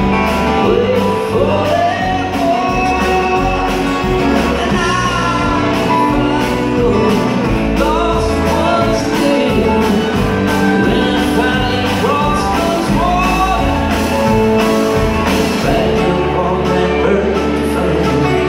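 Live string band playing amplified through a concert hall's PA: acoustic guitars, upright bass, fiddle and drum kit, with a sung lead vocal.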